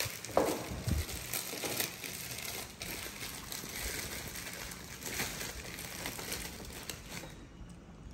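Plastic wrapping crinkling and rustling as bananas are handled and unwrapped, with many small sharp crackles; it dies away shortly before the end.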